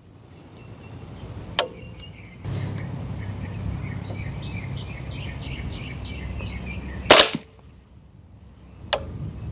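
A single shot from a suppressed 300 Blackout rifle firing 220-grain subsonic ammunition through an 8-inch suppressor, about seven seconds in: a short, loud crack. The shooter hears it behind the gun as little more than the action cycling. Fainter sharp clicks come about a second and a half in and shortly after the shot.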